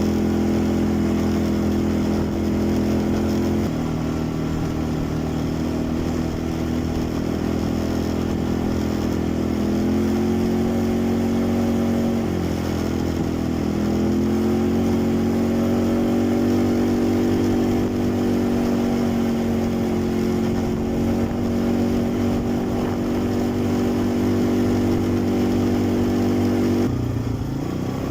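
Quad bike engine running under way, steady with a few changes in engine speed: it dips and climbs again about twelve seconds in, and drops off sharply near the end before rising again.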